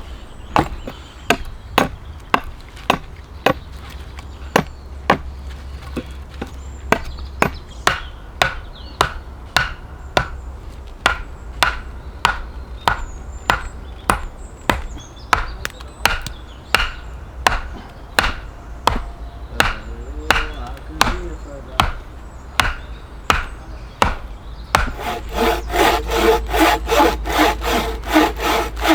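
Chopping into wood with an edged hand tool, sharp strikes in a steady rhythm of about two a second. Near the end a hand saw takes over, cutting through wood in quick back-and-forth strokes.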